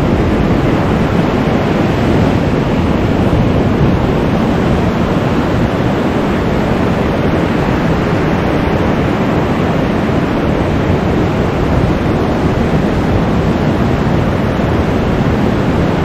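Surf breaking and washing up a sandy beach, a steady roar of waves, with wind buffeting the microphone.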